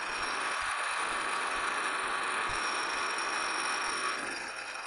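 Metal lathe turning a cleanup pass on bar stock that runs out where it was sheared: a steady cutting hiss over the lathe's running noise and a few steady high whines, easing off slightly near the end.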